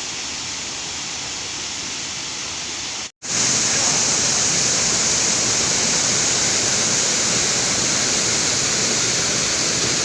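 Rushing water of a waterfall, a steady roar of noise. About three seconds in it drops out for an instant and comes back louder and hissier.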